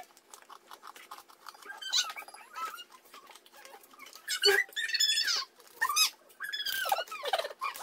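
A toddler's short, high-pitched squeals and babbling that rise and fall in pitch, several times. Crunchy biscuits are being chewed, with quick faint clicks in the first couple of seconds.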